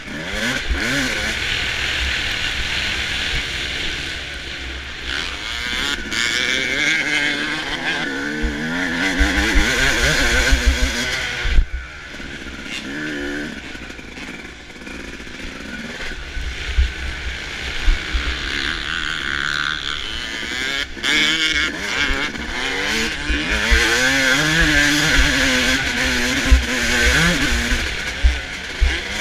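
A 2005 Suzuki RM250 two-stroke motocross bike's engine, heard up close from the bike, revving up and down continuously as it is raced over a dirt track. The revs drop away briefly about twelve seconds in, then pick up again.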